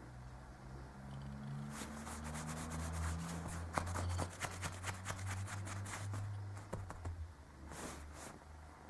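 Red Burmese kitten scuffling and scratching on a shiny quilted throw as it rolls about, a dense crackling rustle of fabric and claws from about two seconds in, dying away, then a short flurry near the end, over a low steady hum.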